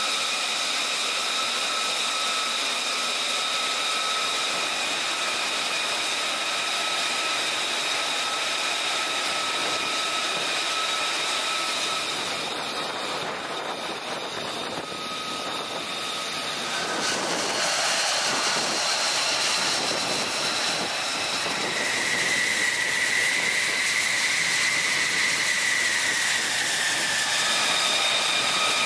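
F-35C Lightning II jet engine running: a steady high whine made of several held tones over a loud rushing hiss. Around twenty seconds in a higher tone swells slightly and fades, and the sound grows a little louder.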